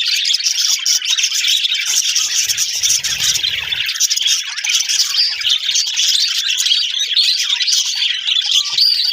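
A flock of budgerigars chirping and chattering all at once: a dense, unbroken twittering of many overlapping short calls.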